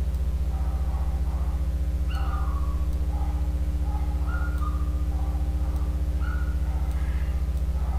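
Steady low electrical hum with a buzz of many even overtones. From about two seconds in, faint short whistle-like tones come and go over it.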